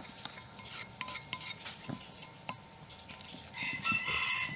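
Metal spoon tapping and scraping against a ceramic bowl while soft fish-bait dough is spooned into a plastic bag: a few separate clinks that ring briefly. From about three and a half seconds in, a farm animal calls with a cry lasting about a second.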